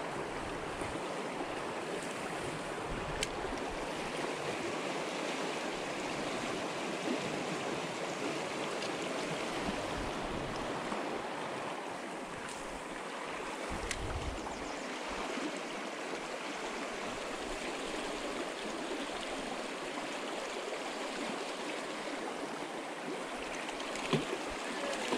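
Steady rush of a shallow, fast-flowing trout stream running over rocks.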